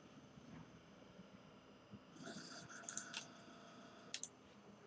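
Near silence: room tone with a few faint clicks, a couple about three seconds in and two more about a second later.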